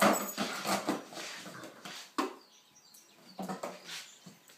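A dog shaking and dragging an empty cardboard beer box across a tiled floor: a run of irregular scrapes and knocks, with one sharp knock about two seconds in and another flurry near the end.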